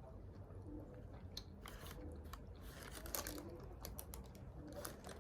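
A person chewing and crunching food: faint, irregular crunches and clicks.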